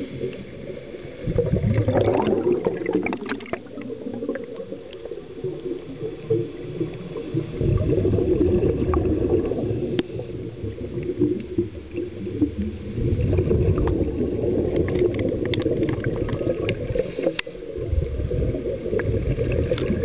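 Scuba diver's breathing recorded underwater: the regulator hisses and exhaled bubbles gurgle in bursts a few seconds long, recurring with quieter inhalation gaps between.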